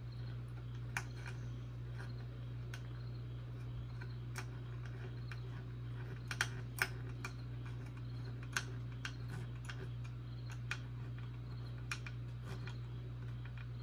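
Scattered small clicks and taps of a hand screwdriver and small plastic parts as standoffs and screws are fitted to a robot kit's chassis, a few louder ones around the middle, over a steady low hum.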